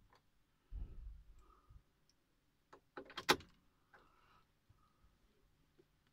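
A low rumbling knock about a second in, then a quick cluster of sharp clicks a little after three seconds in.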